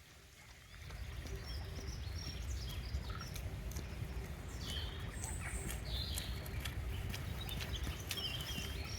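Birds chirping in short calls, over a low rumbling noise that starts about a second in.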